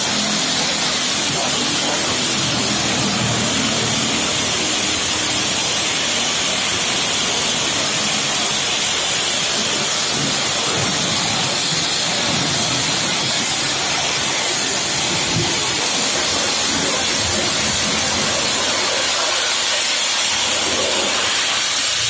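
High-pressure water jet from a Hawk pump car-washer rated at 200 bar, spraying onto a car's paintwork with a steady hiss.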